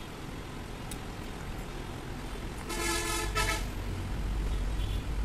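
A vehicle horn toots twice about three seconds in, a longer honk and then a short one, over a steady low traffic rumble that grows louder near the end.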